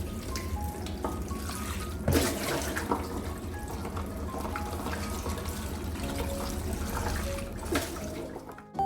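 Kitchen tap running steadily into a sink, with a couple of sharp knocks, under background music. The water cuts off just before the end.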